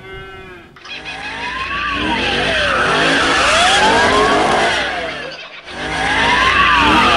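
Dubbed car sound effect of tyres skidding and squealing over a running engine, with a short break just past five seconds. A tone rises and falls three times through the skid, about every two and a half seconds.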